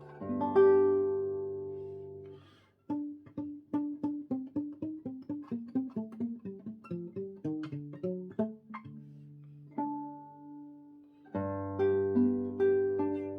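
Solo classical guitar playing. A chord rings out and fades, then after a brief pause comes a descending run of single plucked notes and a few held notes. Near the end the fast repeated-note tremolo comes back in.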